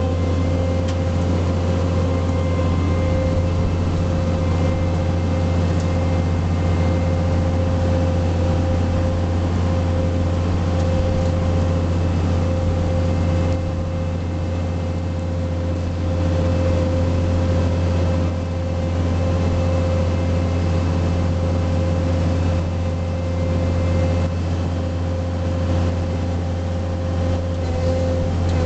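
A 4700 self-propelled sprayer running steadily as it drives through corn while sidedressing: an even, deep engine drone with a constant whine above it.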